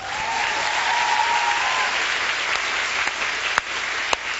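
Studio audience applauding, with a single held tone rising slightly over the first two seconds and two sharp clicks near the end.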